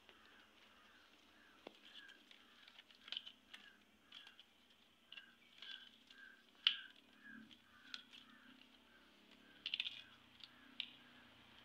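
Dry coconut-frond leaflets crackling and rustling in short, sharp snaps as they are folded and tucked by hand into a woven mat. A bird calls a short note over and over, about twice a second, behind it.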